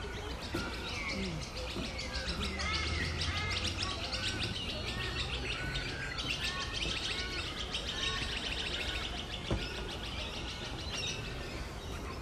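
Many small birds chirping and twittering at once, a dense, continuous chorus of short high calls and quick repeated notes.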